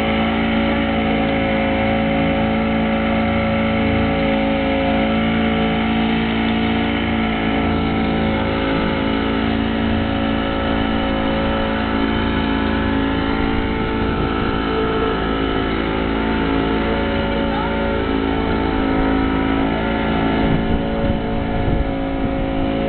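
Tour boat's engine running at a steady speed, a constant drone with several even tones.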